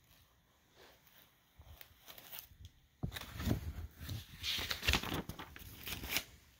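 Paper notebook pages rustling as a hand turns them, with bumps from handling, starting about three seconds in and stopping shortly before the end.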